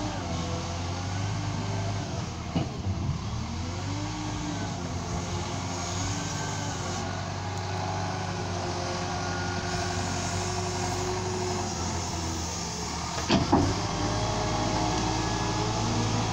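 Liebherr L554 wheel loader's diesel engine running under load as the loader drives back and forth. A whine rises and falls with its movement. Two sharp knocks come about two and a half seconds in and near the end.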